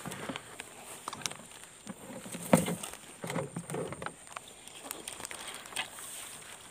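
Footsteps and rustling through grass and brush, with scattered knocks and clicks; the loudest is a single thud about two and a half seconds in.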